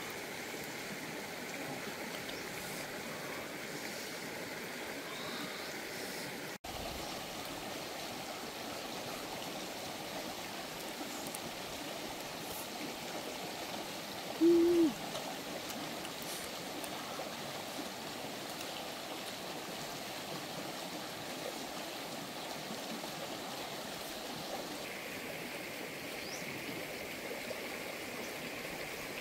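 Steady rush of running water in the background. About halfway through, a short hummed "mmm" from a person chewing food, the loudest sound.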